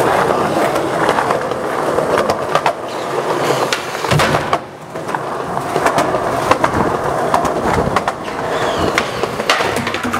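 Skateboard wheels rolling over a concrete walkway, with a quieter stretch about halfway through and sharp knocks of the board throughout.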